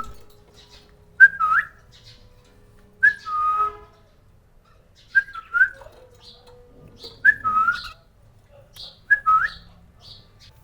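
Cockatiel whistling: a short phrase that drops in pitch, repeated five times about every two seconds.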